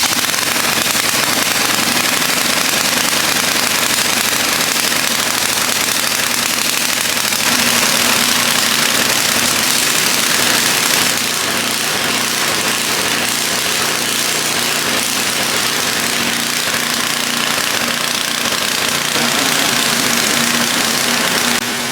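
Two-stage snowblower's small gasoline engine running loud and steady just after starting, its note shifting slightly about seven seconds in and again about eleven seconds in.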